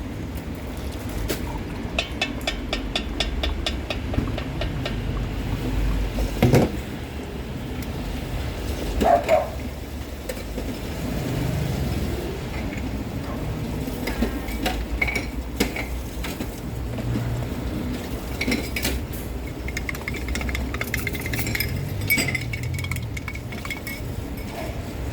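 Clinks and knocks of utensils and cups as iced drinks are made: a quick run of clicks a couple of seconds in and a louder knock around six seconds in, over a steady low rumble.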